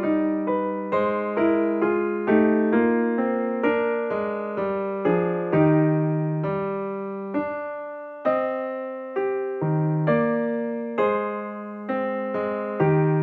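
Background music: a gentle electric piano melody, one note struck after another, each fading away.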